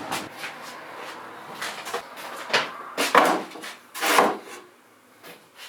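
Handling noises: a series of separate knocks and short scrapes, the loudest two about three and four seconds in, fading to quiet near the end.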